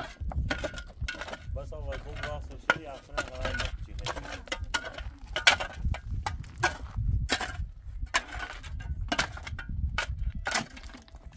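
Irregular knocks, clicks and clatter, with short bits of a voice now and then and a low rumble underneath.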